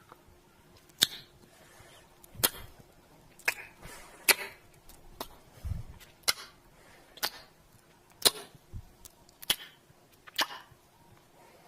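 Close-up kissing sounds: a string of short, wet lip smacks, about one a second.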